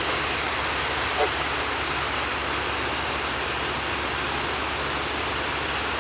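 A steady, even rushing noise, with a faint short call about a second in.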